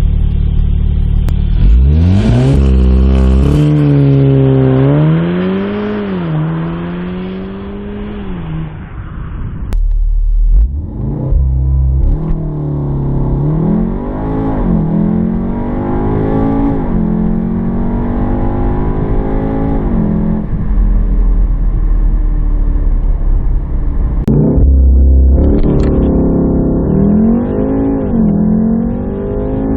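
Volkswagen Golf VII R's turbocharged 2.0-litre four-cylinder accelerating hard through its DSG gearbox. The engine note climbs steeply and drops sharply at each quick upshift. There are three separate runs, with the sound cutting off abruptly about ten seconds and about twenty-four seconds in.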